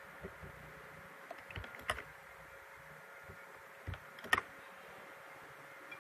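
A few scattered clicks and taps from a computer keyboard and mouse as text is copied and pasted, the loudest about four seconds in, over a faint steady hum.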